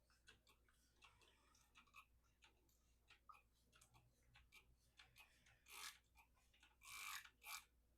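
Faint clicks and light knocks of a whetstone and its gear being handled and set up for wetting. A few brief swishes come about six and seven seconds in.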